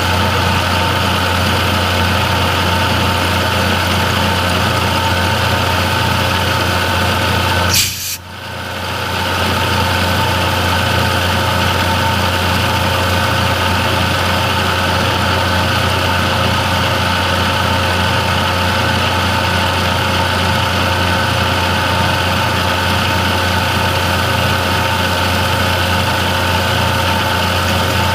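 A machine motor running steadily with an even hum. It cuts out abruptly about eight seconds in and comes straight back.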